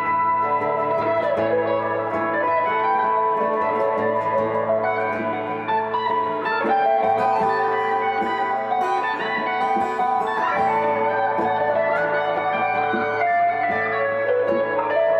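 Electric guitars played live together, with picked single-note lines moving over sustained chords.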